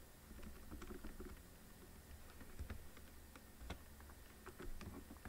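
Faint, irregular clicking of keys being typed on a computer keyboard.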